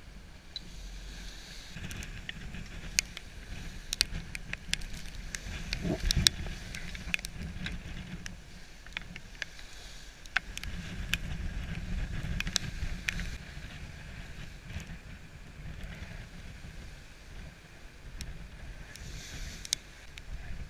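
A sailing yacht pushes through rough sea: its bow wave and spray rush along the hull while wind rumbles on the camera microphone. Frequent sharp ticks and splashes sound throughout.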